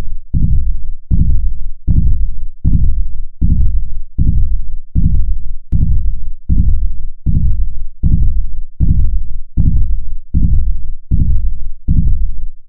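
Heartbeat sound effect: a steady run of deep, low thumps, about 80 beats a minute, stopping near the end.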